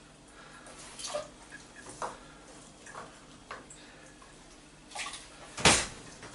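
Chopped carrot pieces being gathered by hand on a plastic chopping board, with light knocks and scrapes about once a second, then a sharp clunk near the end, the loudest sound.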